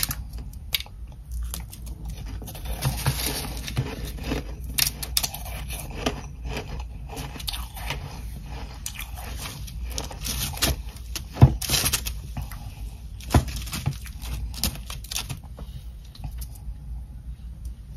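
Frost-coated ice chunks crunching as they are bitten and chewed, close up: a steady run of irregular crackly crunches, with two sharp louder cracks a little past the middle.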